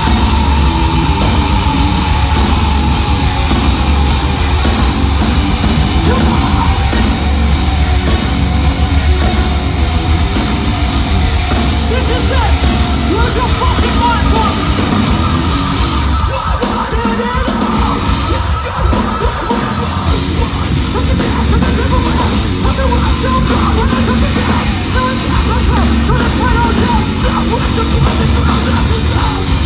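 Metalcore band playing live: heavy distorted guitars over bass and drums. A little past halfway the low end drops out for a few seconds, then the full band comes back in.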